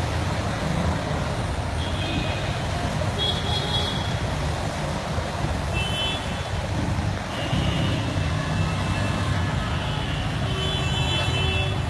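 Vehicle engine running with a steady low rumble under a constant rushing wash of water as it drives along a flooded street, with short high tones sounding a few times.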